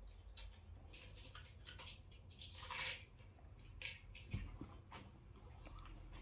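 Kittens' claws scrabbling and scratching on a sisal-rope scratching post: a string of faint scrapes and clicks, with a louder scrape about three seconds in and a soft thump a little over a second later.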